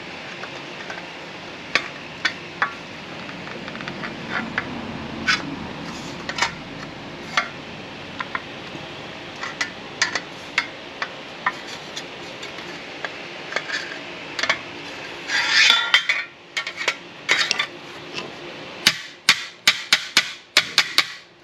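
Metal hand tools and door hardware clinking and tapping at irregular intervals during garage door repair, with a brief rasping rush about fifteen seconds in and a quick run of clicks near the end.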